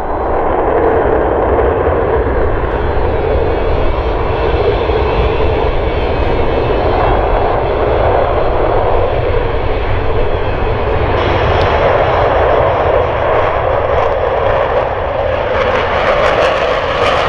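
Jet engines of Boeing F/A-18E/F Super Hornets running loud and steady.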